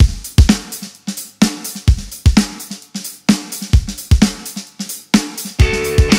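Band song intro: a drum kit playing alone, with kick, snare and hi-hat/cymbal hits in a steady beat, then guitar joins with sustained notes about five and a half seconds in.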